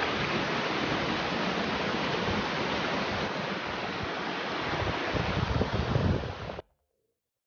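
Steady rushing of a waterfall, with wind buffeting the microphone in gusts near the end. The sound cuts off suddenly about six and a half seconds in.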